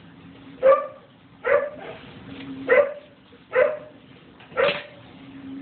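A dog barking, five short barks at a steady pace of about one a second.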